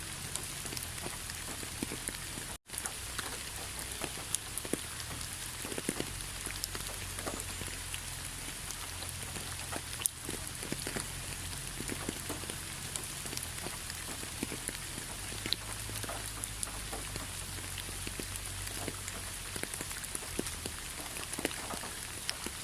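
Steady rainfall with many individual drops ticking and pattering on surfaces. The sound cuts out for an instant about two and a half seconds in.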